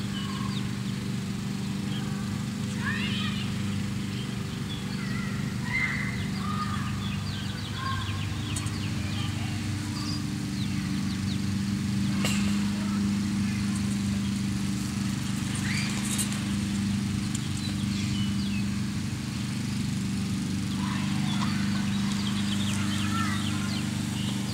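Steady low engine-like hum, its pitch shifting slightly about eight seconds in, with short high peeps and chirps from young chickens scattered over it.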